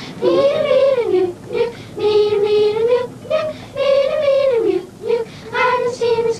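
A group of children singing a song in unison inside a minibus, in phrases of held notes with short breaths between them.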